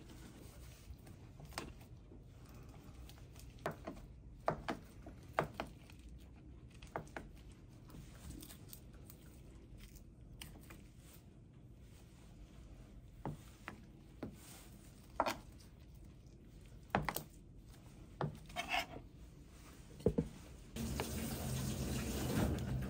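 Scattered sharp clicks and knocks of cooking tools and metal bungeoppang molds being handled, over a low steady hum. A steady rushing noise sets in near the end.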